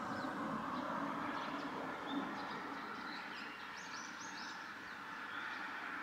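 Short, high bird chirps over a steady background hum, with a quick run of chirps around the middle.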